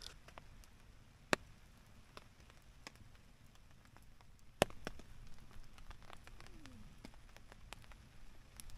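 Faint campsite ambience: a dying campfire crackling with scattered sharp pops, over a soft steady hiss of rain on the tarp.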